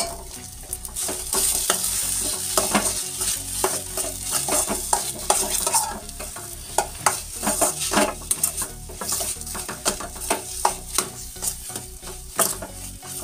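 Metal spatula stirring and scraping spiced mashed-potato filling around a steel kadhai, with frequent irregular clicks and scrapes against the pan over a steady sizzle of hot oil.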